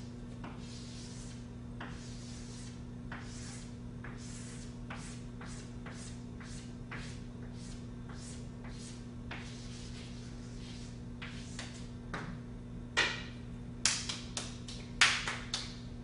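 Chalk scratching on a blackboard as lines are drawn in quick strokes: a long run of short, scratchy rubs, one after another. Near the end come a few louder, sharp knocks. A steady low hum runs underneath.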